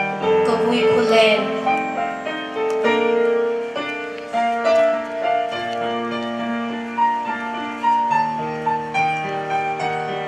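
Keyboard music: a slow melody of held, overlapping notes.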